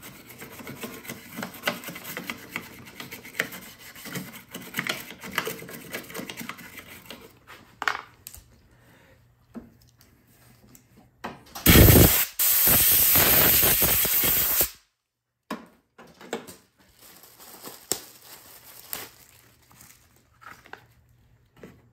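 Scrubbing and scraping with small plastic clicks as the dirt-fouled air filter housing of a Craftsman push mower is cleaned out. About halfway through, a loud steady hiss lasts about three seconds.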